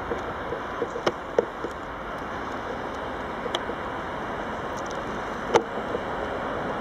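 Electric locomotive rolling past on the rails: a steady rumble of wheels on track, with a few sharp clicks or knocks over it. The loudest click comes about five and a half seconds in.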